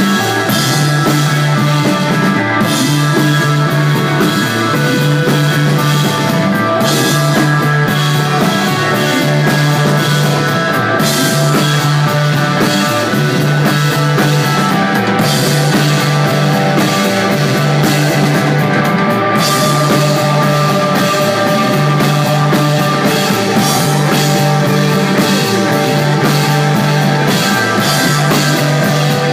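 Live rock band playing an instrumental desert-rock passage, with electric guitar, bass and drums. A low bass note repeats about every second and a half under steady cymbals and sustained guitar.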